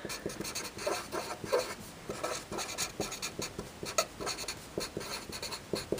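Felt-tip marker writing on paper: a quick run of short scratching strokes as words are written out by hand.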